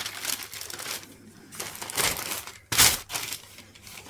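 Tissue paper rustling and crinkling as a cardboard shoebox is opened and new sneakers are unwrapped, in irregular bursts, with one louder sharp sound about three seconds in.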